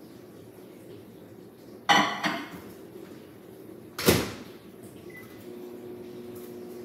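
A glass bowl and spoon clink twice with a ringing clatter as the bowl goes back into an over-the-range microwave. Then the microwave door shuts with a sharp bang, a single keypad beep sounds, and the microwave starts running with a steady hum for another 30-second burst to melt chocolate.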